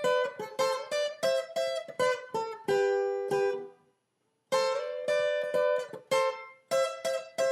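Background music of plucked guitar notes. A melodic phrase rings out, stops for about half a second around four seconds in, then starts again.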